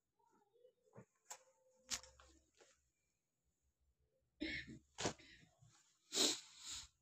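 Denim jeans being picked up, unfolded and shown to the phone, heard as a string of brief rustles and swishes of cloth with handling bumps. The longest swish comes a little after six seconds in.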